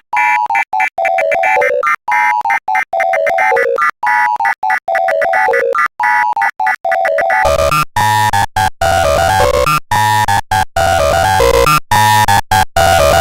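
Deliberately distorted 'earrape' remix of an Emergency Alert System tone: a short melody of clean, beeping synth notes repeats about every two seconds. About seven and a half seconds in, a loud, distorted bass-heavy layer joins it and makes the whole track harsh and clipped.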